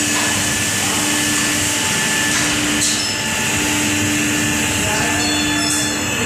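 Woodworking machinery running steadily: a loud, even mechanical noise with a hiss and a low drone that drops out briefly a few times.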